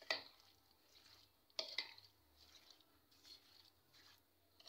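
Steel spoon stirring cream-coated chopped fruit in a bowl: faint wet squishing and spoon scrapes in a few separate strokes, the clearest at the very start and about a second and a half in.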